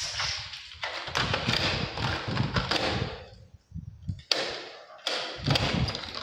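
Key being turned in a steel door's multi-point lock, the bolts clunking in and out, with a bunch of keys jangling, in two bouts of knocks and clatter.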